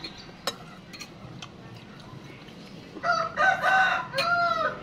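A rooster crowing once, a call of several joined notes about three seconds in, lasting under two seconds. Before it, a few light clinks of metal spoons against bowls.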